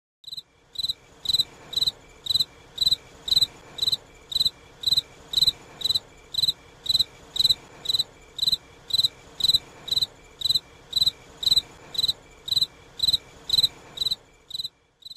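Cricket chirping steadily, about two short high chirps a second.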